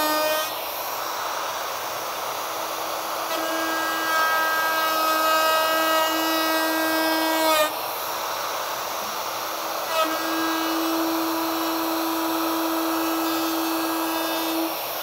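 Handheld compact router running at full speed while climb routing, the bit cutting a profile along a board's edge as it is fed right to left. The motor's steady whine rises and falls in strength several times as the bit cuts, with two short dips in the middle; in a climb cut the router tends to freewheel and run ahead now and then.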